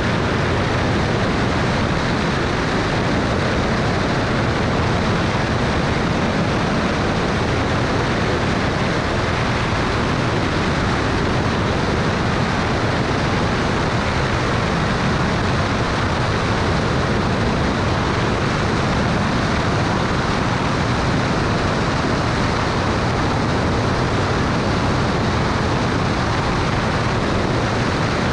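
Steady in-flight noise of a Cessna 210 Turbo Centurion: rushing airflow over an externally mounted camera blended with the drone of the propeller and engine, unchanging throughout.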